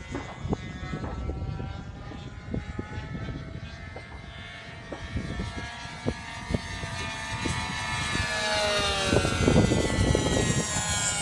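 Radio-controlled model airplane's engine and propeller running in flight, growing louder as it approaches and passing close by about nine seconds in, its pitch dropping as it goes away.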